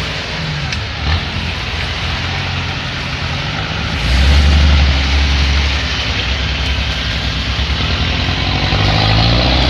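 Off-road vehicle's engine running, revving up and down, with a louder low surge about four seconds in.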